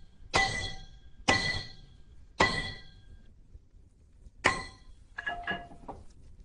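Hammer blows on steel at an anvil: four heavy ringing strikes spaced about a second apart, with a longer gap before the fourth, then a few lighter ringing taps near the end.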